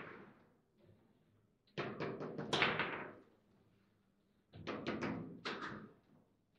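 Table football game in play: quick runs of hard clacks as the ball is struck by the plastic player figures and the rods are worked. There are two bursts of several knocks each, one about two seconds in and another about four and a half seconds in.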